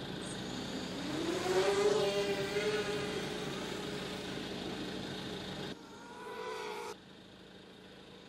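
ZMR250 racing quadcopter's four RCTimer 2300 kV brushless motors with 5x4 props spooling up and lifting off: a whine that climbs in pitch about a second in, then holds steady. It drops off sharply near six seconds, comes back briefly, then stays fainter.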